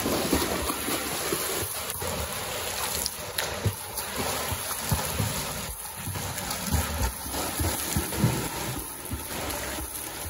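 A swimmer's flutter kick and freestyle arm strokes splashing through pool water, a continuous, irregular churning with frequent small splashes.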